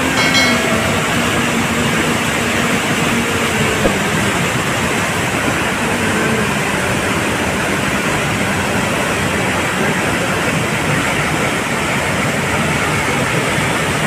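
Aharbal waterfall pouring through a rocky gorge into its plunge pool, making a steady, loud rush of water.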